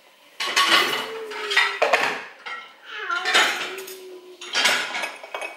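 Kitchen crockery and cutlery clinking and clattering in about four bursts: mugs, a glass jug and a spoon being handled on the bench.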